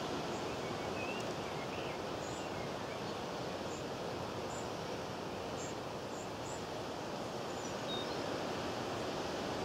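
Steady outdoor wind noise with small birds chirping briefly and intermittently over it.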